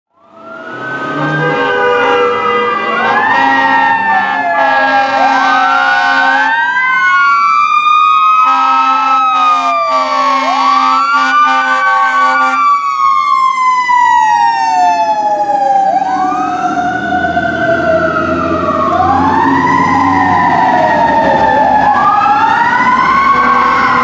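Fire engine responding with its mechanical Q siren wailing, winding up quickly and falling slowly, over and over. Two long blasts of the air horn sound over the siren, in the first few seconds and again around the middle.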